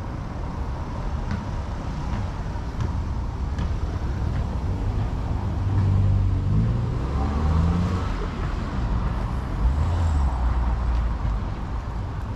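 A car engine pulling away and speeding up off-camera, its pitch rising in steps about halfway through, over a steady low rumble of street traffic. Faint regular ticks of footsteps on the paving run underneath.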